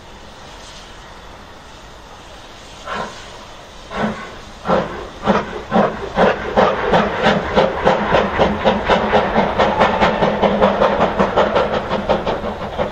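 BR Standard Class 9F 2-10-0 steam locomotive starting away from a stand. Steam hisses steadily at first; about three seconds in the exhaust beats begin, slow and separate, then quicken to about four a second as the engine gathers speed.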